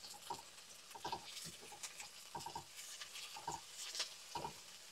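A plastic spatula scraping and knocking irregularly around a nonstick frying pan, stir-frying garlic, red onion and jalapeño in a little oil, with a faint sizzle underneath.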